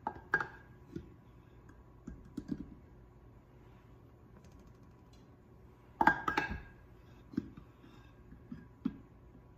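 Measuring cup scooping flour from a ceramic canister and tipping it into a stainless steel mixing bowl: scattered light clicks and knocks, with a louder clatter about six seconds in.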